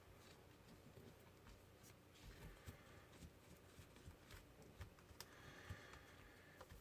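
Near silence: faint scattered taps and soft handling noises of hands pressing gauze into wet latex on a mold.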